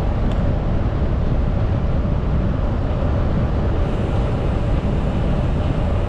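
Wind buffeting the microphone of a camera carried on a moving bicycle: a steady, loud, low rumble.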